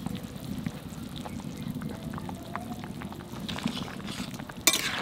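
Potato and vegetable-stem curry simmering in a kadai on a wood fire: a steady low bubbling with scattered small clicks. Near the end a short, sharp scrape as the spatula stirs against the pan.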